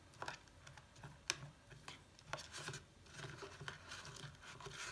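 A metal spoon stirring damp sawdust and coconut shavings in a tub: faint scraping and rustling, with a few sharp clicks of the spoon against the tub.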